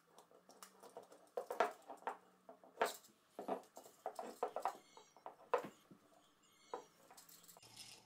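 Light, irregular clicks and scrapes of a screwdriver tightening the ground screw on a GFCI outlet, and of the bare copper ground wire and plastic outlet being handled.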